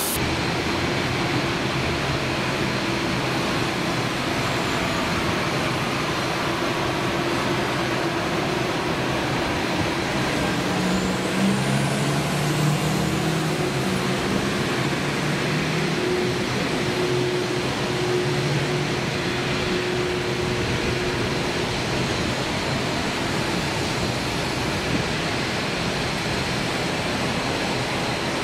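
Jet aircraft engine noise during a takeoff: a steady rushing sound with a low droning hum that is strongest in the middle.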